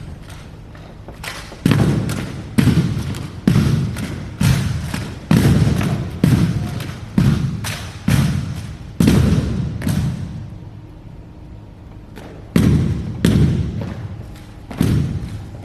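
A JROTC rifle drill team's unison thuds as the members strike the ground in time during their routine: about one a second, nine in a row, then after a pause of about two seconds, four more. Each thud rings on briefly.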